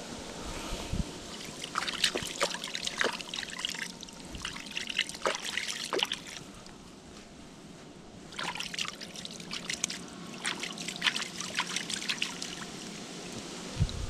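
Hands splashing and rinsing in shallow river water, with trickling and dripping, in two spells separated by a short pause.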